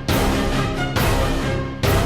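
Background music with a strong, steady beat, hitting roughly once a second.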